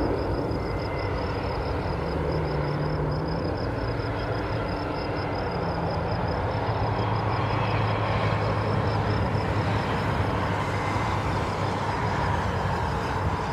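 Airbus A320neo jet engines heard at a distance: a steady engine noise with a low hum that grows stronger in the second half.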